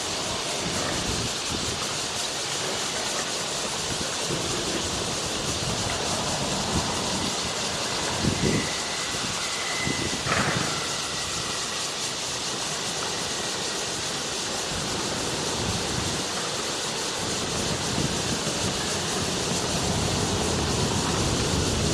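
Steady outdoor background noise, an even hiss with a low rumble, with a faint high steady whistle and a couple of short knocks around the middle.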